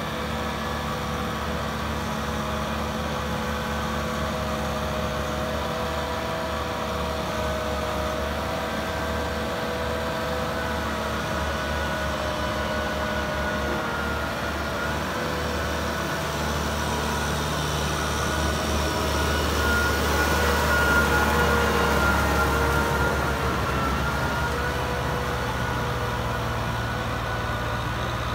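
Farm tractor's diesel engine running steadily under load as it drags a rear tiller through deep flooded paddy mud, with a steady whine over the low drone; it grows louder for a few seconds about twenty seconds in.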